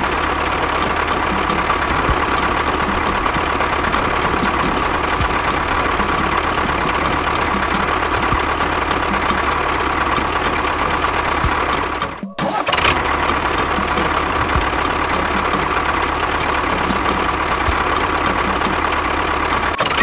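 Tractor engine idling steadily with a regular knock. It breaks off for a moment about twelve seconds in, then carries on unchanged.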